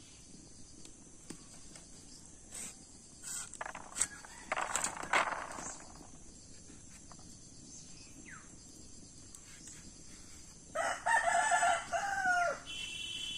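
Rooster crowing once, about three-quarters of the way in: one long pitched call that drops at the end. Earlier come a few sharp clicks and a rasping scrape as a gourd is sliced on a boti, a fixed curved blade.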